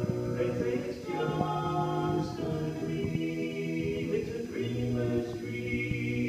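Barbershop quartet of four men singing a cappella in close harmony, holding long chords that change about a second in and again later.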